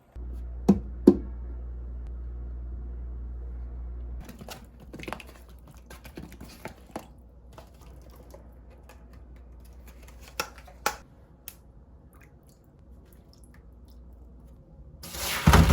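Sharp clicks and light knocks of kitchen items being handled, over a low hum that stops about four seconds in. Near the end a kitchen tap is turned on and water runs hard into the sink.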